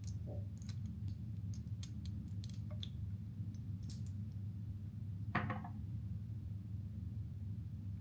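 Small objects being handled: scattered light clicks and taps, with one louder clink about five and a half seconds in, over a steady low hum.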